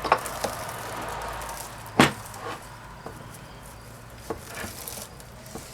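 Metal parts of a small electric motor's armature being handled and knocked: scattered clicks and clinks, with one sharp knock about two seconds in.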